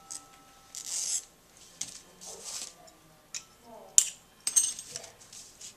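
Hand glass cutter scoring glass with short scratchy hisses, then pliers snapping the scored glass: one sharp crack about four seconds in, followed by small clicks and crunches as bits of glass break away.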